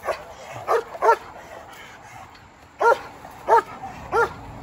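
Belgian Malinois police dog barking at a decoy while held back on a leash: six short, sharp barks, three in quick succession, a pause, then three more evenly spaced. These are the dog's active, engaging barks, meant to draw the decoy closer.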